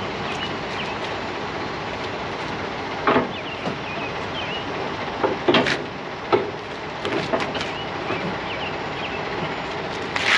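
A handful of sharp metal knocks and clanks at a semi-trailer's sliding tandem, one about three seconds in, a cluster a couple of seconds later and one near the end, over a steady outdoor hiss. A few faint bird chirps come in the first half.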